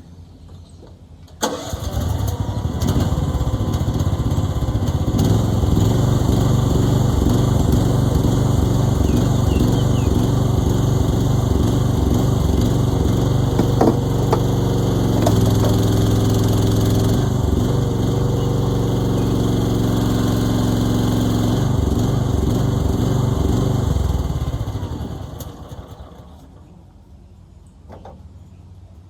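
An engine starts abruptly about a second and a half in, runs with its pitch shifting as the throttle or load changes, then dies away near the end.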